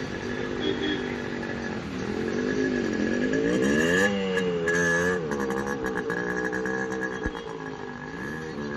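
Motor vehicle engine running and revving, its pitch rising and falling several times, loudest about four seconds in, over a steady high whine.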